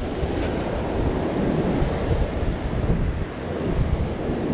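Wind buffeting the microphone over the steady rush of ocean surf breaking on the beach.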